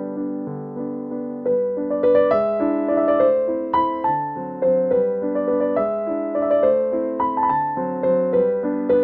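Background piano music: a gentle melody of notes struck one after another, getting busier about two seconds in.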